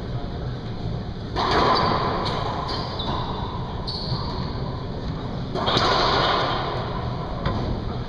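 Racquetball rally in an enclosed court: a string of sharp smacks of the ball off racquets and walls, ringing in the reverberant court, with two louder stretches about a second and a half and six seconds in. Short sneaker squeaks on the hardwood floor come between the hits, over a steady low hum.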